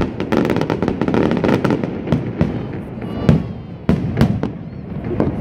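Aerial fireworks display: shells bursting in rapid bangs over dense crackling, the bangs coming thick and fast for about two seconds, then sparser.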